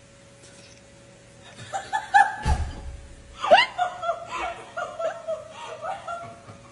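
A person laughing in high-pitched, broken bursts, starting a little under two seconds in, with a low thump partway through. A faint steady hum runs underneath.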